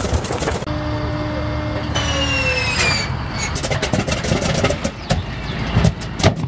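Antonov An-2's nine-cylinder Shvetsov ASh-62 radial engine being cold-started. A steady starter whine drops in pitch as it turns the engine over, then the engine catches and fires unevenly with irregular loud pops. A different radial engine is heard running for the first half second.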